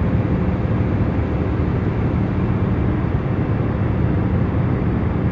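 Steady airliner cabin noise in flight: a constant low engine and airflow rumble with a faint hum, unchanging throughout.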